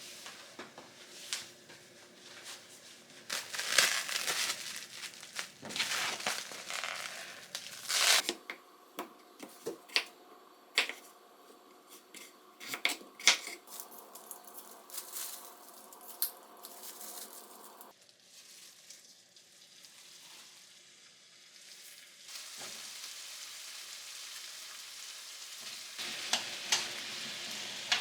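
Kitchen cooking sounds: scattered clicks, clatter and rustling, then food sizzling steadily in a frying pan from about two-thirds of the way in, getting louder near the end.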